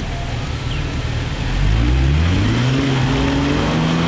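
Off-road Jeep's engine under load on a muddy climb: a low rumble, then revving up about a second and a half in and held at high revs.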